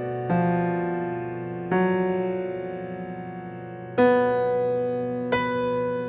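Kawai grand piano played slowly: four sustained chords struck one to two seconds apart, each left to ring and die away.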